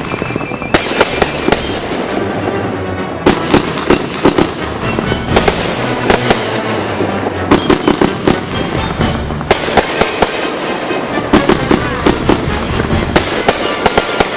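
Fireworks going off in a rapid, continuous barrage, sharp bangs coming in quick clusters throughout, with crackle between them.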